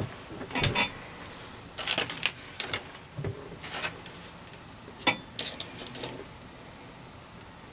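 Light clicks and clatter of small parts being handled on a wooden workbench: a bare printed circuit board moved about and loose axial resistors picked up, in irregular bursts that stop about six seconds in.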